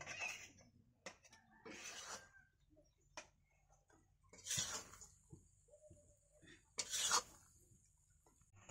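Spatula scraping and clinking against a steel plate and an iron kadai as grated coconut filling is pushed into the pan and stirred, in short irregular strokes with two louder scrapes in the second half.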